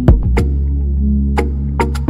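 Background music with a deep sustained bass and sharp drum hits.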